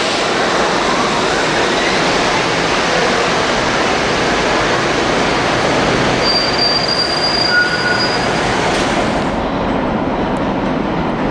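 New York City subway train running along a station platform, its wheels rumbling on the rails, with a whine rising in pitch near the start and brief high wheel squeals partway through. Near the end the sound changes to another subway train approaching in a station.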